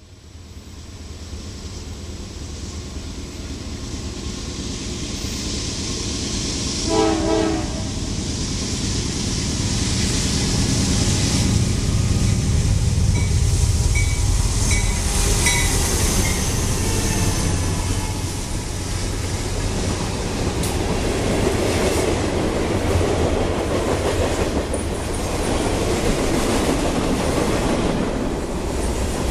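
Diesel freight train approaching and passing, its rumble building up over several seconds. There is one short horn blast about seven seconds in, then a steady rumble as the cars roll past.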